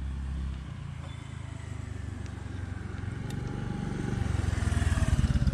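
A motorcycle engine running, its quick low pulsing getting steadily louder over the second half.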